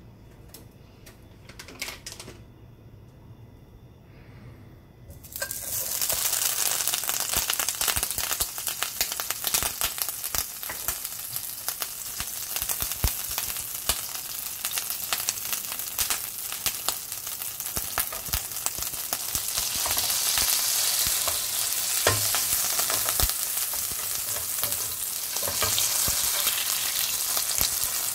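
Butter sizzling and crackling as it melts in a hot stainless-steel frying pan, the fat spattering. The sizzle starts suddenly about five seconds in, after a few quiet seconds with a couple of faint clicks, and grows a little louder later on.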